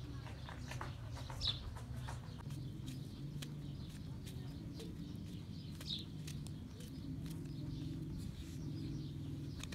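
Small knife clicks as mushrooms are sliced by hand over a steel bowl, with pieces dropping in. Short high bird chirps come twice, about a second and a half in and near the middle, over a steady low hum.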